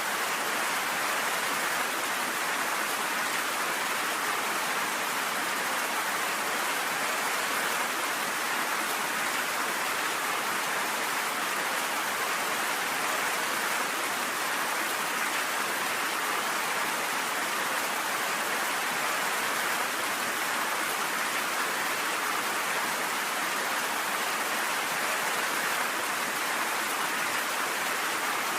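Rain falling steadily, an even, unbroken sound with no thunder.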